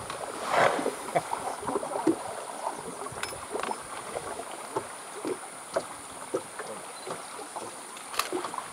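River water lapping and gurgling against the hull of a boat: a string of irregular soft splashes and plops over a light hiss.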